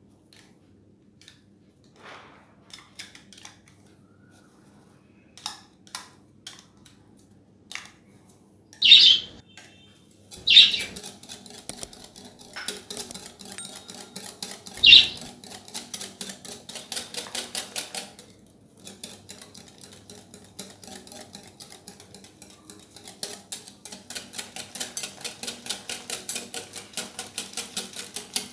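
Wire whisk beating an egg, milk and mango pulp custard mixture in a glass bowl, its wires clicking rapidly and evenly against the glass, the beating faster and denser in the last few seconds. Three brief, loud, high-pitched sounds stand out near the middle.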